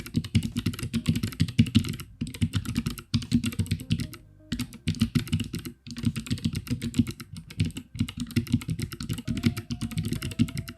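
Fast typing on the Forager mechanical keyboard: a quick run of key clicks and clacks, broken by a few short pauses.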